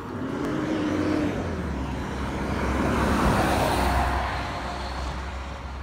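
A box truck passing on the road, its engine rumble and tyre noise swelling to a peak about three to four seconds in and then fading.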